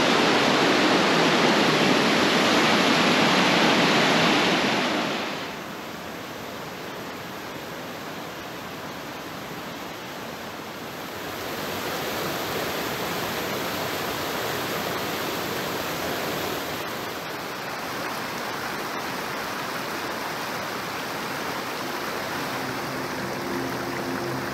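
Rushing white water of Montreal Falls pouring over rock ledges: a steady roar that drops suddenly after about five seconds and swells again about halfway through. Faint music comes in near the end.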